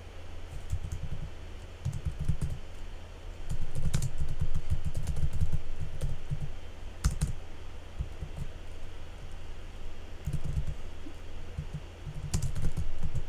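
Typing on a computer keyboard: irregular runs of keystrokes with short pauses between them, over a steady low hum.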